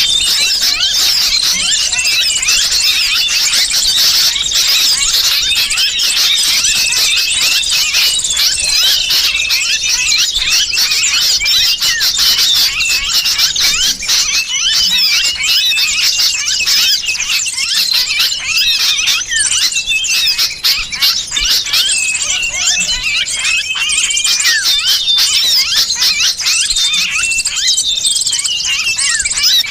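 Bird-lure recording: a dense, unbroken chorus of small birds' agitated, overlapping chirps and squeals, mixed with the distress calls of a sooty-headed bulbul (kutilang) caught in a trap.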